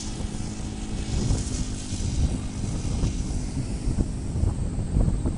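O.S. 95 four-stroke model-aircraft engine of a radio-controlled Cessna 182 idling as it taxis. Wind noise rumbles on the microphone over it and grows louder near the end.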